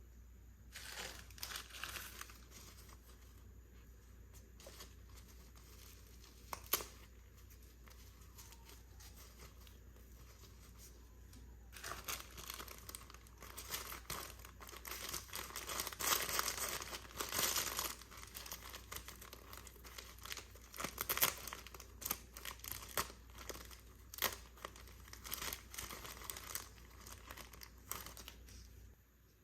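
Packaging being crinkled and torn open by hand. A short burst of crinkling comes at first, then a single sharp click, then a long stretch of continuous crinkling and tearing in the second half.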